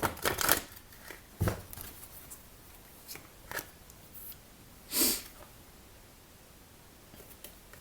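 A few soft clicks and rustles from oracle cards being handled and drawn, and a short sniff about five seconds in.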